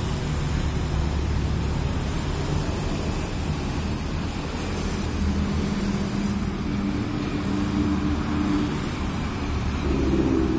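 Street traffic: motorcycles and cars passing close by with a steady engine rumble. A clearer engine note comes in about halfway through, and another near the end.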